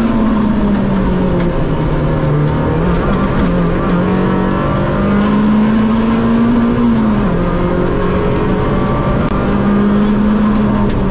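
Rally car engine heard from inside the cockpit, running hard at speed. Its note rises and falls repeatedly as the driver accelerates and lifts, dropping sharply about a second in and again around seven seconds in.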